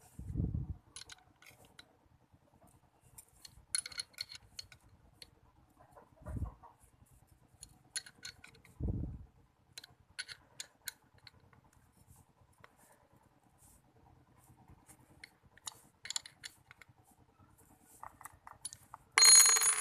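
Scattered light clicks and taps of small hardware being handled and fitted by hand, with a few dull handling thumps and a brief metallic clatter near the end.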